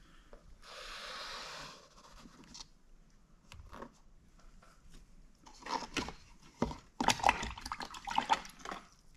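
Paintbrush rinsed in a jar of water: a brief swishing of water about a second in, then irregular splashes, drips and light taps in the second half.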